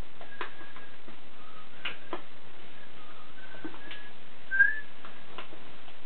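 Someone whistling a string of short, clear notes at slightly different pitches, the loudest a brief rising note about four and a half seconds in, over faint clicks of paper being creased and folded.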